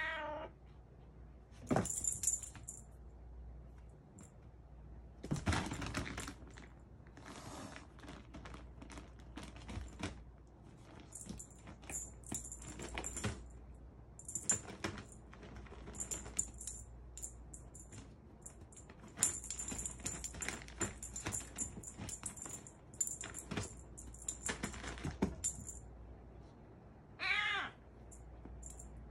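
A cat wand toy swished and dragged across a wooden floor in play, with scattered light taps and rustles and repeated high jingling. An F1 Bengal kitten meows once near the end.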